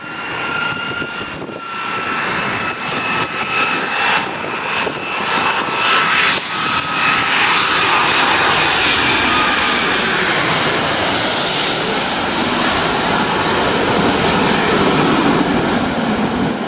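Boeing 757 jet airliner on landing approach, its engines' fan whine sinking slightly in pitch as it closes in. The sound swells into a broad jet rush, loudest as the aircraft passes low overhead, and eases only near the end. Wind gusts buffet the microphone early on.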